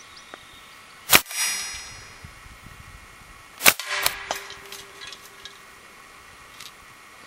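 Umarex Steel Storm CO2 BB gun fired twice, about two and a half seconds apart. Each shot is followed by the ringing clang of steel BBs striking metal targets. After the second shot comes a short string of fainter metallic pings and ticks.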